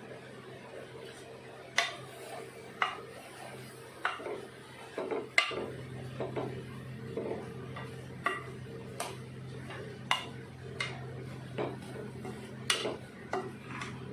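Metal spoon stirring manathakkali greens as they sauté in a pan, knocking and scraping against the pan about once a second over a steady low hum.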